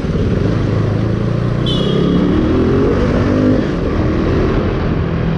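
KTM motorcycle's single-cylinder engine running at low speed, its note rising about two seconds in as the bike accelerates, then holding steady at a higher pitch. A brief high-pitched squeak sounds about a second and a half in.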